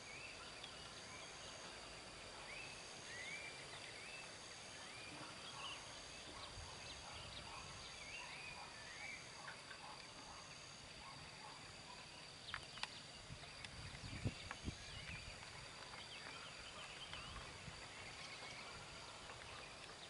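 Faint outdoor ambience: many short bird chirps over a steady high-pitched whine and a pulsing high trill. A few soft knocks come around the middle.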